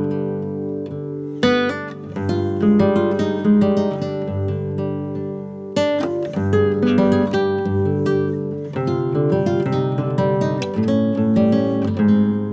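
Background music: acoustic guitar played with plucked notes and strummed chords, with strong strums about a second and a half in and again near six seconds.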